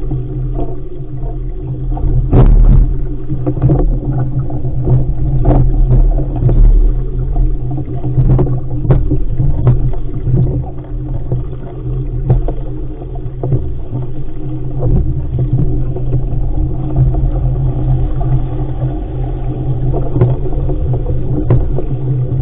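Wind buffeting the microphone of a deck-mounted camera on an RS500 sailing dinghy, over water rushing past the hull as it sails fast through chop, with irregular sharp slaps of waves and spray against the hull.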